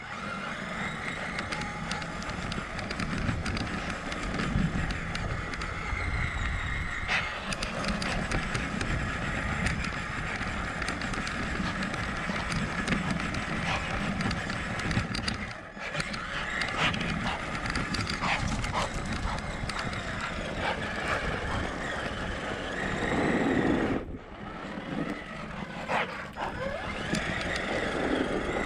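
Traxxas Summit RC truck's electric motor and gearbox running with a steady whine at low speed, heard close up from a camera mounted on the truck, its tyres crunching over gravel.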